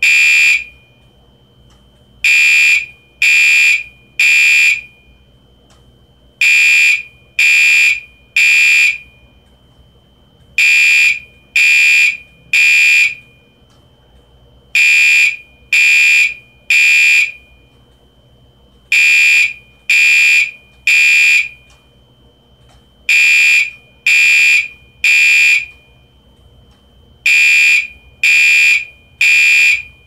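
Gentex Commander 2 electronic fire alarm horn sounding very loud in the temporal-three pattern: three half-second blasts of a high electronic tone, then a pause of about a second and a half, repeating. This is the standard building-evacuation signal. A faint steady high whine runs between the groups.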